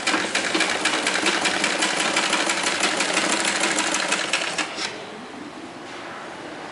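Sewing machine stitching a seam through blouse fabric, a fast, even run of needle strokes that stops about five seconds in.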